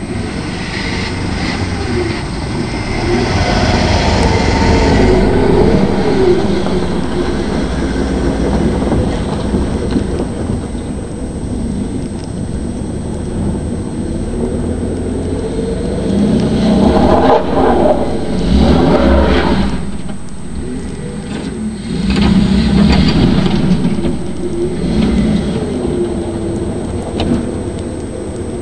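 Ford F-150 pickup engine revving in repeated surges, its pitch rising and falling as the truck is drifted on snow over ice.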